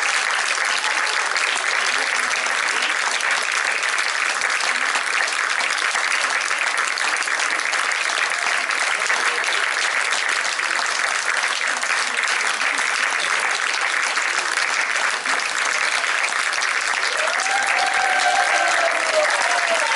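Theatre audience applauding steadily and densely through a curtain call, with a few voices calling out above the clapping near the end.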